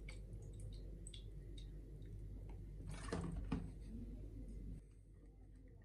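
Faint handling sounds of a plastic bottle and a small plastic measuring spoon as saline solution is measured out, with light clicks and a soft knock about three seconds in. The background drops quieter near the end.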